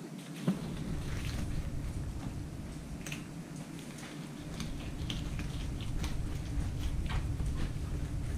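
A knife cuts through a corbina's flesh along its backbone on a plastic cutting board, making short wet scraping clicks. There is a single knock about half a second in, over a steady low hum.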